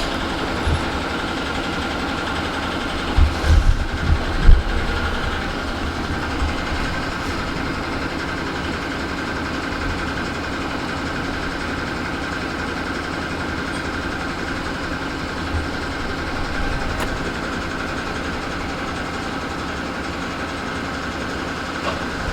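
Metalworking shop machinery running steadily, a continuous mechanical hum with a held whine. A few low thumps come about three to four and a half seconds in, the last one the loudest.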